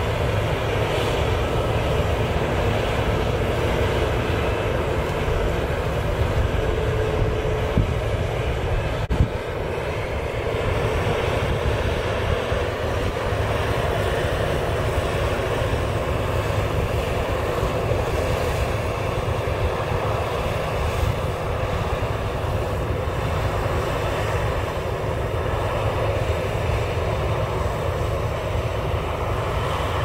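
New Holland CR9090 combine running under load as it picks up and threshes canola swaths: a steady, dense engine and machine drone.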